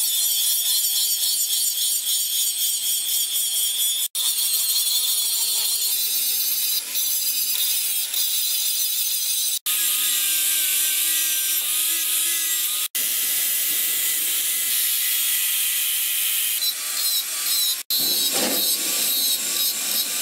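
Angle grinder with an abrasive disc grinding the steel of a forged axe head: a steady, loud, high-pitched grinding hiss, cut off sharply for an instant four times.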